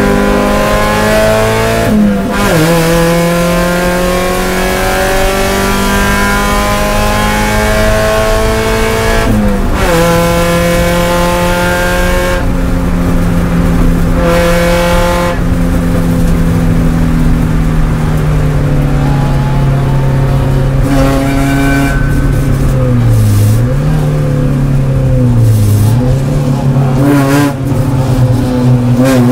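Spec Miata race car's four-cylinder engine heard from inside the cockpit, pulling hard with the revs climbing slowly, broken by quick upshifts about two seconds in and again near ten seconds. Near the end the revs dip and recover twice as the car slows for a corner.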